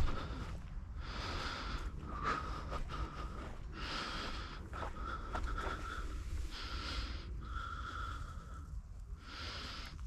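A person's nasal breathing close to a body-worn camera microphone, a hissy breath about every second and a half, over a steady low rumble.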